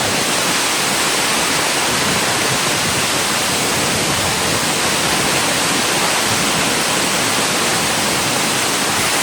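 Zaina Waterfall, a drop of about 60 metres, giving a loud, steady rush of falling water.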